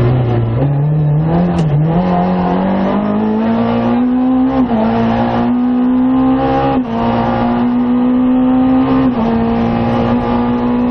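Rally car engine heard from inside the cabin, working hard: the revs dip and climb back in the first two seconds, then hold high along the straight with three brief dips in revs.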